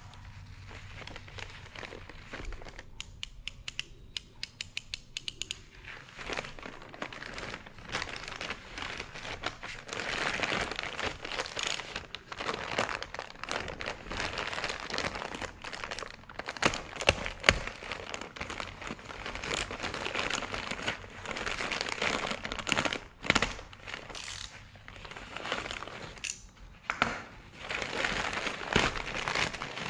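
Plastic courier mailer bag crinkling and tearing as it is handled and pulled open by hand. About three seconds in there is a quick run of sharp ticks.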